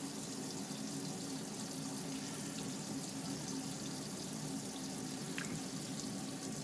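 Hot water running steadily from a camper's tap turned full on, drawing from an Alde water heater, with a steady low hum underneath.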